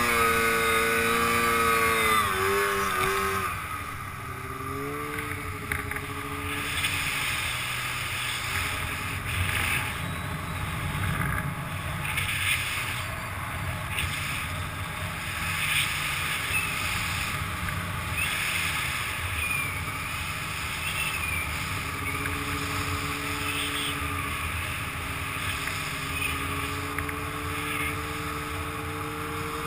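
Arctic Cat Crossfire 700 snowmobile's two-stroke twin engine running at high revs, its note falling about two to four seconds in as the throttle comes off. It runs quietly for a long stretch, then the revs come up again in the last several seconds.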